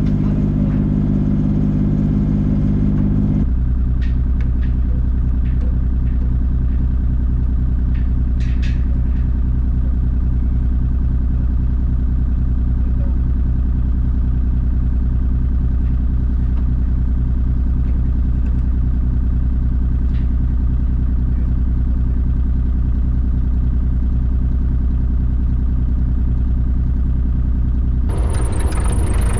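Diesel engine of a piece of construction equipment running steadily; about three seconds in its note drops to a lower, steady speed. A few faint clicks sound over it, and a hiss joins in near the end.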